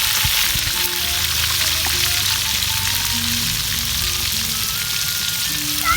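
Boiled salted fish frying in hot oil: a steady sizzle and spatter, with soft background music under it.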